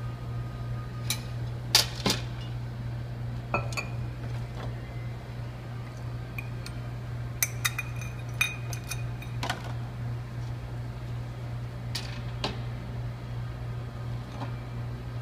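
Irregular metal and glass clinks and knocks as espresso-machine parts and utensils are handled during cleaning, the loudest about two seconds in, with a cluster a few seconds later. A steady low hum runs underneath.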